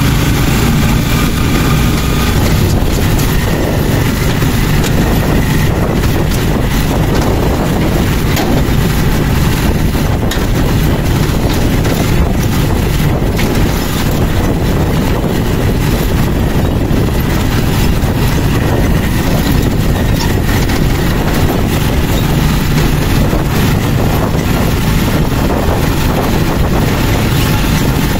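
Motorcycle tricycle running steadily along a gravel road, heard from inside the sidecar: engine drone mixed with wind noise and the rattle of the cab over the bumps.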